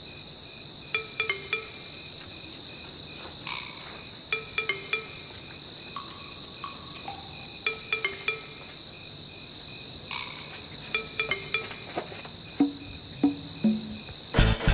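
Crickets chirping steadily in a night ambience, with a pattern of shorter calls repeating about every three seconds. Music with drums cuts in at the very end.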